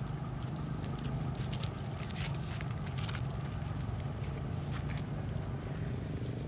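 A steady low rumble, with a few short crackles of dry leaf litter being disturbed as a macaque forages on the ground.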